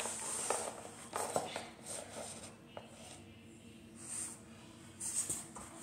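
Plastic fashion dolls being handled and set down on a wooden floor: a few light knocks and soft rubbing, spread out over several seconds.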